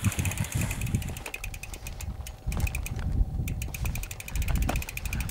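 Gusty wind rumbling on the microphone while a loaded mountain bike is pushed and carried up a rocky trail, with a few short knocks from the bike. A faint, fast, high chirring runs underneath.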